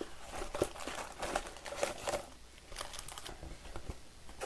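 Trading-card pack wrappers crinkling as packs are handled, in many short, irregular crackles.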